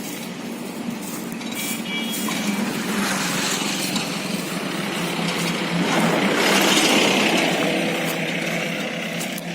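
Diesel engine of a horizontal directional drilling rig running steadily with a constant low hum. A louder rushing noise swells up through the middle, peaks about two-thirds of the way in, then fades.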